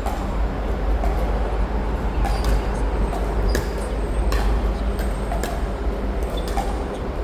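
Pickleball paddles striking a plastic ball in a soft forehand dink rally: short, sharp pops about a second apart, over a steady low rumble.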